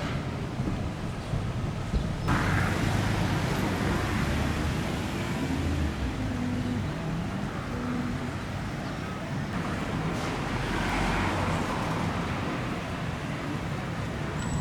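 City street traffic: a steady mix of car engine and tyre noise, with a vehicle passing more loudly about two-thirds of the way through.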